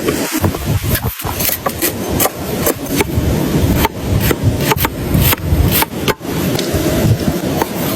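Chicken wings grilling over charcoal: a steady loud sizzle and crackle, broken by many sharp clicks and knocks.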